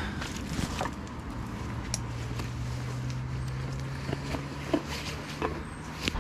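Rustling and small clicks of a jacket and rucksack straps being handled and shifted, with a steady low hum of road traffic starting about a second in.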